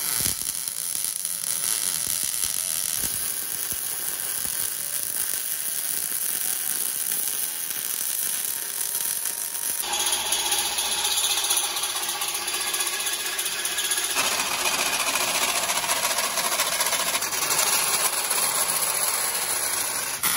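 Steady, rough workshop noise from power tools working steel roll-cage tubing, changing abruptly every few seconds as the footage cuts between tasks.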